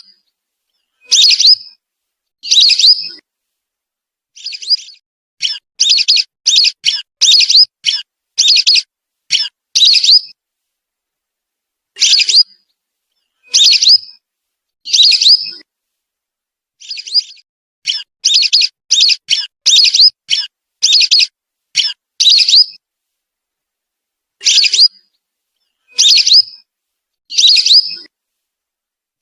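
Whistling duck (belibis) calls played as a lure recording: short, high whistled notes, some single and some in quick runs of five or six, with clean silence between.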